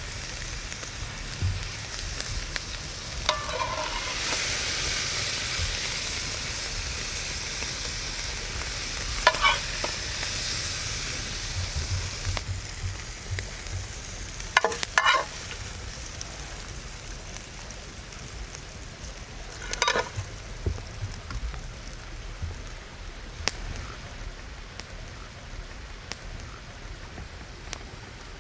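Food sizzling and frying in a pan, the sizzle strongest in the first half, with a utensil scraping or stirring in the pan four times.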